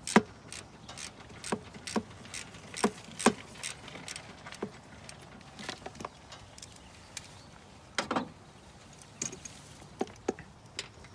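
Irregular sharp metallic clicks and clinks of hand tools: a socket wrench with an extension being fitted and worked on a bolt deep in the engine bay. The clicks come a few to the second with small gaps, the loudest right at the start.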